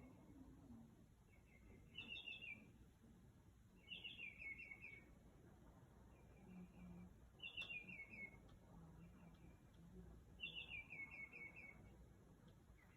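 A songbird singing in short, faint phrases of quick chirping notes, a new phrase every second or two, each one a little different from the last.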